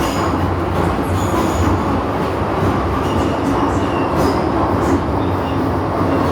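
MTR M-train metro car running at speed, heard from inside the car: a steady rumble of wheels and traction motors. A few faint, brief high squeals come now and then.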